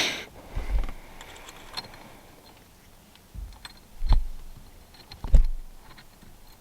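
A short hiss cuts off at the start, then comes a handful of separate sharp knocks and clicks, hard parts and tools being handled and set down. The two loudest knocks fall about four and five seconds in.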